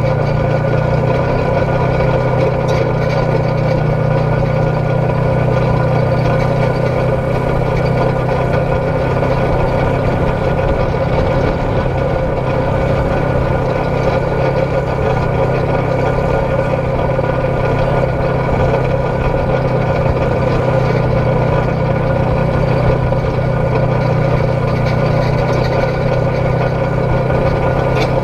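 Polaris RZR XP 1000 side-by-side's twin-cylinder engine running at a steady pace while cruising along a dirt road, with no change in revs.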